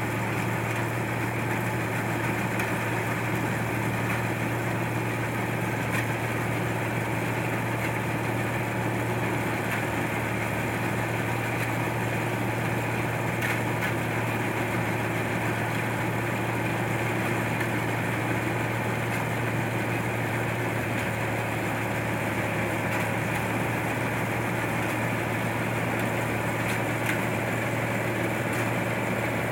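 Combine harvester engine running at a steady speed, a constant low hum with machinery noise over it and no change in pace.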